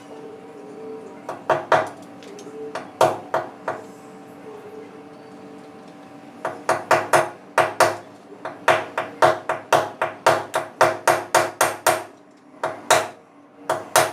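Hammer blows: a few scattered strikes, then a quick, even run of about fifteen blows at roughly three a second, then two more near the end.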